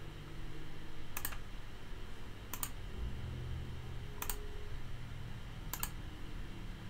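Four sharp clicks from a computer keyboard or mouse, about a second and a half apart, each a quick double click like a key or button going down and coming back up, over a faint low hum.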